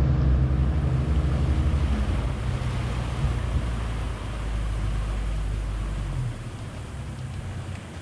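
Yamaha outboard engine running, then throttled back twice: its note drops about two seconds in and fades further about six seconds in as the boat slows. The hiss of the hull's wake runs underneath.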